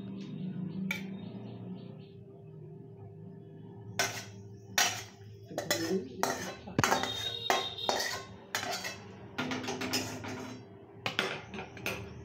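Metal spatula scraping and clinking against a steel plate as cooked cabbage filling is spread out. After a few light taps it becomes a quick, uneven run of strokes about four seconds in.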